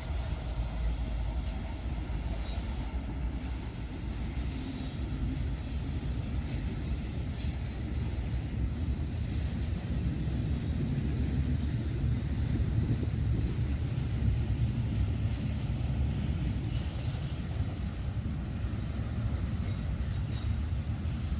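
Freight train, an intermodal, rolling past with a steady low rumble of wheels on rail. Brief high wheel squeals come through a few times.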